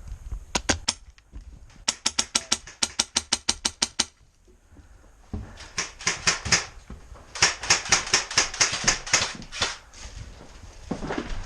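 Airsoft guns firing on full auto in several bursts of rapid clicking shots, about seven a second, with short pauses between bursts.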